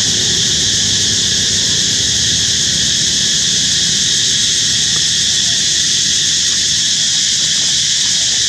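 Steady, loud, high-pitched drone of insects.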